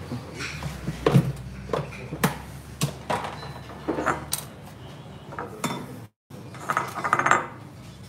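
Kitchen utensils knocking and clinking against bowls and dishes: a string of separate sharp knocks and clicks. Near the end comes a short scraping rattle as a knife cuts into a plastic tub of butter.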